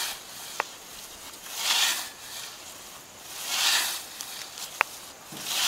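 A 28-inch scythe blade slicing through lawn grass in swishing strokes, about one every two seconds. Two faint sharp ticks fall between the strokes.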